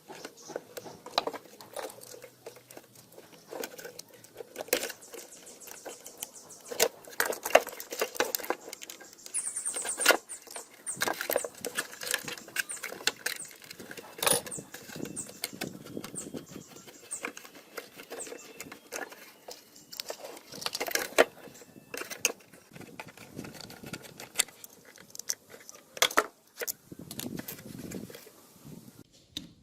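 Small metal parts of an old table fan being handled and worked on by hand: irregular clicks, taps and light scraping, with a few brief high squeaks about ten seconds in.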